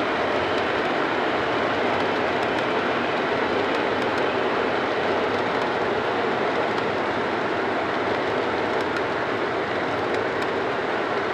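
O gauge model freight train of MTH high-cube boxcars rolling past: a steady rolling rumble of metal wheels on the track, with occasional faint clicks.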